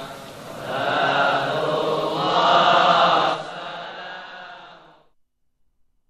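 Chanting in long, held phrases that swell and fall, then fades out about five seconds in, leaving near silence.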